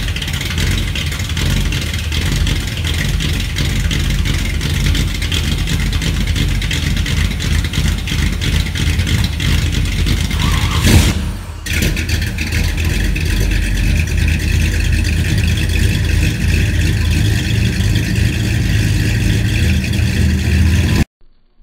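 454 big-block Chevy V8 idling steadily through a Full Boar FB2540 chambered muffler, a Flowmaster 40-style design, with a deep, loud exhaust note. There is a brief surge and dip about eleven seconds in.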